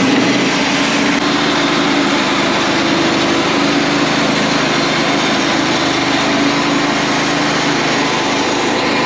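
Wood-Mizer LT35 portable band sawmill running with a steady engine drone.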